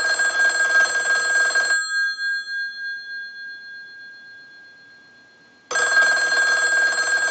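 Western Electric 500 rotary desk telephone's repaired bell ringing on a test ring cycle. A fast metallic ring lasts about two seconds and dies away. After a pause of about four seconds it rings again near the end.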